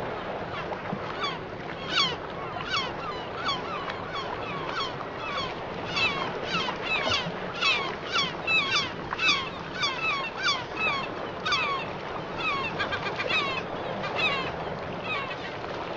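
A flock of birds calling over and over: many short calls that drop in pitch, several a second and densest in the middle, over a steady rushing background.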